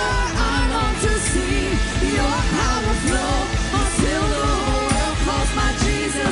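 Live worship band music: a gliding vocal melody over sustained chords, with a steady low beat.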